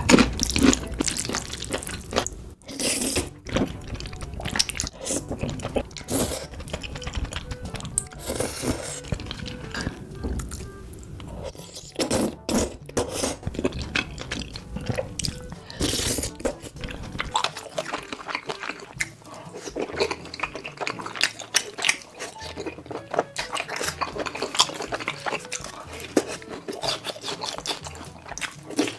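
Close-miked eating sounds, with chewing, biting and wet mouth clicks, over background music.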